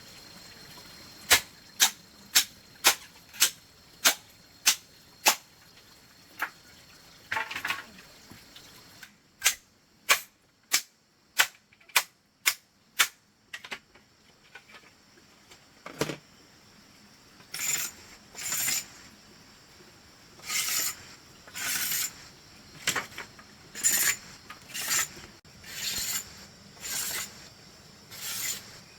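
A blade striking dry bamboo to split it: a run of sharp chops about two a second, a second run after a short pause, then longer, scraping strokes about once a second near the end.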